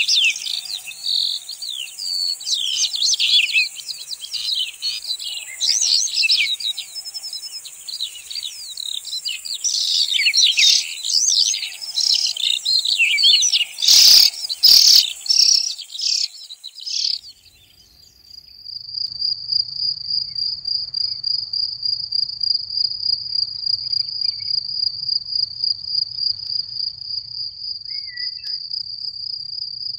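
Songbirds singing over one another in a dense chorus, with two sharp clicks about halfway through. After a brief drop about two-thirds of the way in, the birdsong gives way to one insect's steady, high, evenly pulsing trill, the stridulation of a meadow cricket or grasshopper-type singer.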